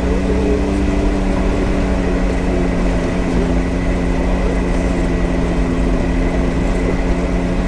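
Can-Am Maverick X3 side-by-side's turbocharged three-cylinder engine running at a steady speed while driving, with low road and drivetrain rumble, heard from on board the vehicle.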